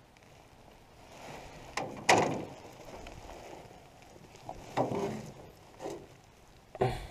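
Several hollow knocks and thumps on the floor of an aluminum canoe while a bass is laid on a measuring board and held flat. The loudest knock comes about two seconds in, and a few lighter ones follow.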